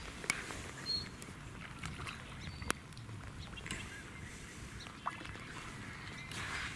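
Hooked carp splashing and swirling at the water's surface close to the bank while being played in, with a few sharp clicks and a low rumble underneath.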